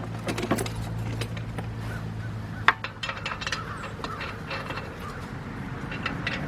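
Irregular metallic clinks and knocks of tools and metal parts being handled during wheel work on a pickup, with one sharper knock about three seconds in. A low hum fades out near the start.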